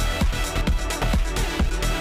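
Background electronic dance music with a steady beat, about four beats a second, over a constant bass.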